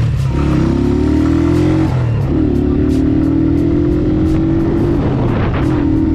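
Murasaki Caracal 150cc motorcycle's counterbalanced single-cylinder engine pulling away under the rider. It accelerates, its pitch rising and then dropping back twice, about two and five seconds in, at the upshifts.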